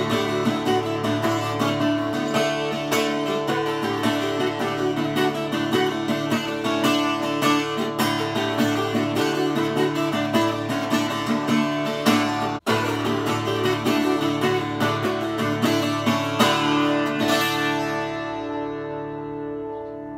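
Twelve-string acoustic guitar playing an Irish folk-style instrumental tune, ending on a final chord that rings out and fades over the last few seconds.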